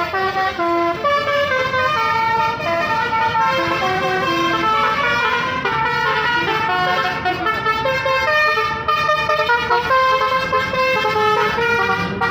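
Basuri telolet musical horns on tour buses playing a tune of short, stepped notes, one pitch after another.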